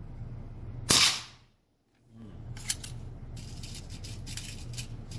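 AirForce Talon precharged pneumatic air rifle firing a single shot about a second in: one sharp crack that dies away within half a second. A run of light clicks follows later.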